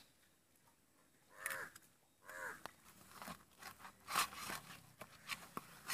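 A hand mixing raw egg into chilli-powder batter mix on a stainless steel plate, with irregular scraping and sticky clicking. A bird calls twice, about one and a half and two and a half seconds in.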